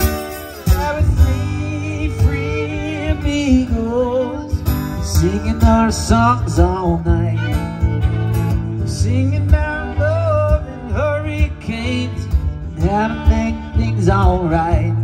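Acoustic guitar strummed under a fiddle playing a sliding, wavering melody: an instrumental country/bluegrass break with no singing.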